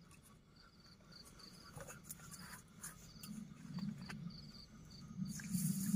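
Crickets chirping, short high chirps repeating about twice a second, with a few light knocks as the cooking pot is handled. A low hum comes and goes in the second half, and a louder rustle comes near the end.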